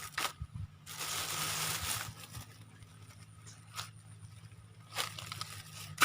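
Rustling and crackling handling noise, with a dry rush lasting about a second near the start and a few light clicks and taps later, over a faint low hum.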